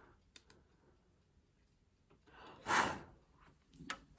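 A breathy sigh, an exhale about two and a half seconds in, with a few faint clicks of small plastic remote parts being handled before and after it.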